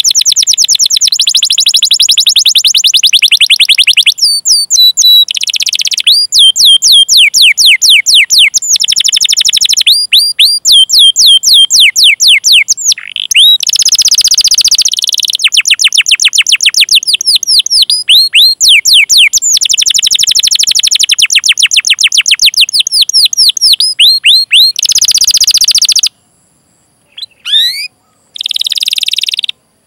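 Domestic canary singing a long, loud song of fast repeated chirps and rolling trills, in phrases with brief breaks. The song stops about 26 seconds in, and only a few short notes follow.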